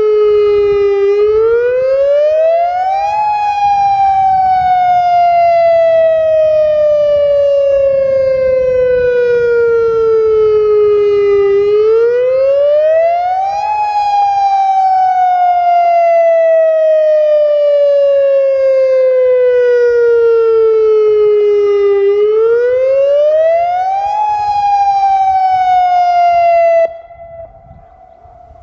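Federal Signal Modulator 4016 electronic outdoor warning siren sounding its wail: a loud tone that rises over about two seconds, then falls slowly over about eight seconds, three times over. Near the end it drops sharply, leaving a fainter fading tone.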